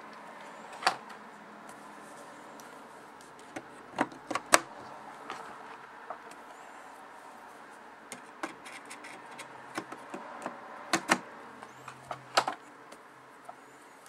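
Sharp clicks and taps of RAM modules with metal heat spreaders being set into the plastic memory slots of a Mac Pro memory riser card, one module after another, loosely seated and not yet pressed down. About half a dozen distinct clicks, the loudest about a second in, twice around four seconds, and around eleven and twelve seconds, with small ticks of handling between them.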